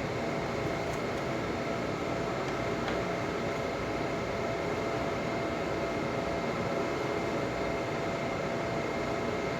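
Steady background hum and hiss with a few faint steady tones, unchanging throughout.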